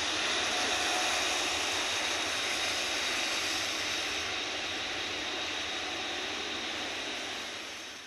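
Airbus A330-900 airliner's Rolls-Royce Trent 7000 jet engines running steadily as it rolls along a soaked runway, a continuous even jet noise that fades out near the end.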